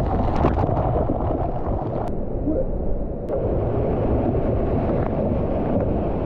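Steady, muffled rush of a waterfall close by, its sound mostly low and deep, with a few sharp clicks in the first second.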